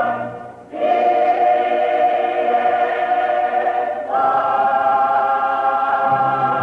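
Large mixed choir singing slow, sustained chords. One chord dies away at the start, a new chord enters under a second in, and the harmony shifts up about four seconds in.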